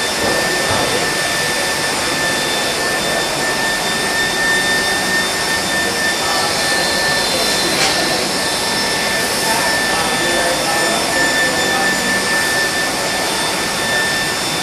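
Induction furnace melting brass: a steady high-pitched whine from the coil over a continuous noisy hum of machinery.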